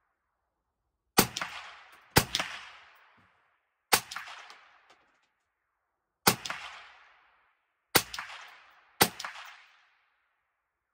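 Six rifle shots at uneven intervals, each a sharp crack with a long echoing decay.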